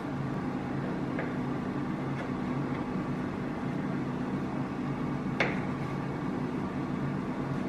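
Ninja 5.2-litre air fryer running its preheat: a steady fan hum with a low whirring tone. A single sharp click of a knife on the wooden tabletop comes about five and a half seconds in, as dough is cut.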